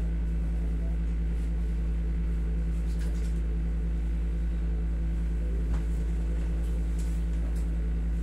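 Steady low hum of a room air conditioner, unchanging throughout, with one faint tick partway through.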